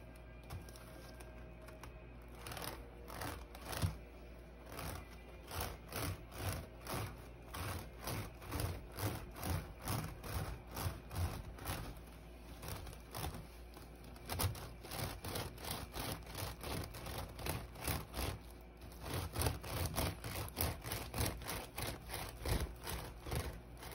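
A block of Japanese wood wax (mokuro) rubbed hard back and forth over the woven strips of a wild-grape-vine basket bag: a rhythmic scraping at about two strokes a second. There is a brief lull near the end.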